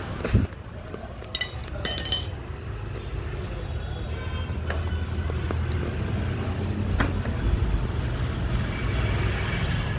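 Hand work on a car's plastic front bumper grille and trim: a few sharp clicks and knocks, several close together about two seconds in, and more near the middle and later on. A steady low rumble runs underneath.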